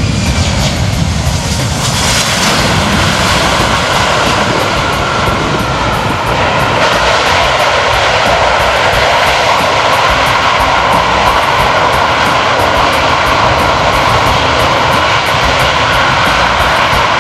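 Four turbofan engines of a C-17 Globemaster III landing and rolling out on the runway: a steady jet roar with a falling whine about two seconds in, growing louder from about seven seconds on.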